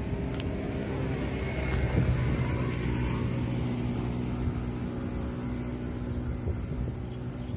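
Engine of a motor vehicle on the road beside the path, a steady hum that swells about two seconds in and carries on for several seconds, over a low wind rumble.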